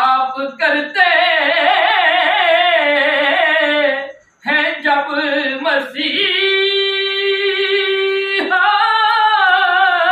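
A man singing solo and unaccompanied in a high voice, with wavering ornamented runs, a brief pause about four seconds in, then long held notes.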